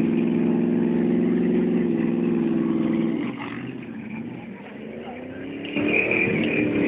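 Ford 4x4 pickup's engine held at steady high revs, easing off about three seconds in, then revving up again near the end.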